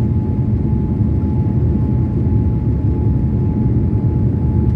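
Jet airliner cabin noise heard from a window seat during the descent to land: a steady low roar of engines and airflow, with a thin steady whine above it.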